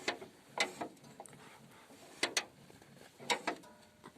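Light metal clicks and clunks of a T-25 tractor's home-made cable throttle linkage as the gas pedal is pressed and released, a quick pair of clicks each time, three times.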